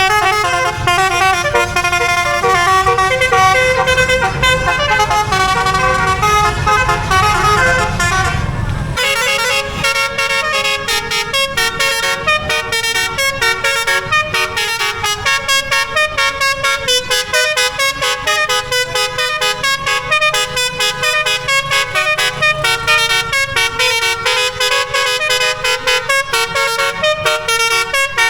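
A bus's multi-tone telolet horn playing a melody of quick stepped notes. A low engine rumble runs under it for about the first nine seconds and then cuts off. After that the horn notes come in a fast staccato run.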